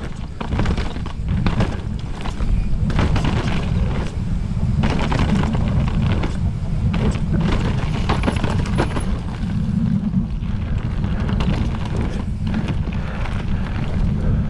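Mountain bike ridden fast down a rough downhill trail: heavy wind buffeting on the camera microphone, with frequent knocks and rattles of the bike over the ground.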